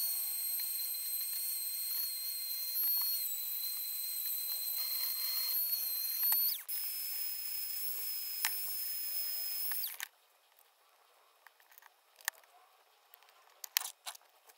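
Dremel rotary tool with a grinding stone running in a steady high-pitched whine as it grinds at the edge of a metal car horn housing. The pitch shifts about two-thirds of the way through, and the tool stops about ten seconds in, leaving a few light clicks of parts being handled.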